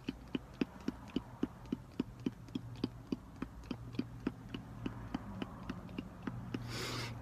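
A car's turn-signal relay ticking steadily, about three to four clicks a second, over a low steady hum. A brief rush of noise comes near the end.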